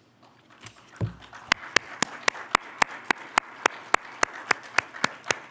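A dull bump about a second in, then one person's hands clapping steadily, about four claps a second, for nearly four seconds.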